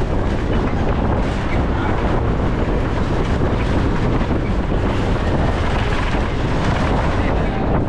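Wind buffeting a microphone held out of the window of a moving bus, over the bus's steady engine and road noise.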